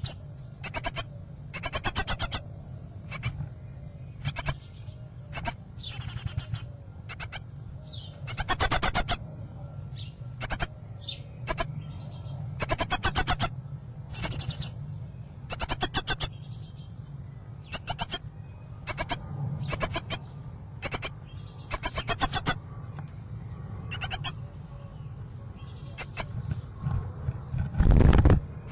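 Great tit nestlings begging inside the nest box: short raspy bursts of calling, repeated again and again. A steady low hum runs underneath. A heavy thump comes near the end.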